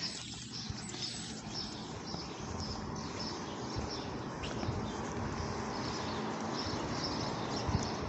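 Small birds chirping repeatedly over a steady wash of outdoor background noise that swells slightly midway.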